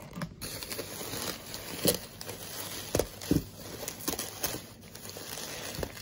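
Bubble wrap and plastic bags rustling and crinkling as hands dig through a cardboard box, with scattered sharp crackles and taps.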